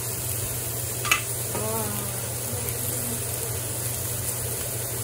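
Beef and green beans sizzling in a hot wok as a wooden spatula stirs them, with one sharp click of the spatula against the wok about a second in. A steady low hum runs underneath.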